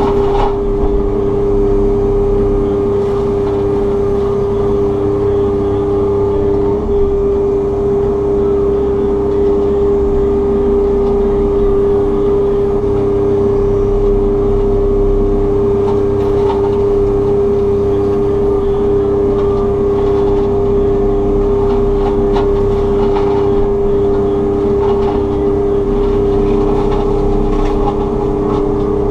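Takeuchi TB290 excavator running with its FAE mulching head spinning: a loud, steady drone with a constant high whine over it.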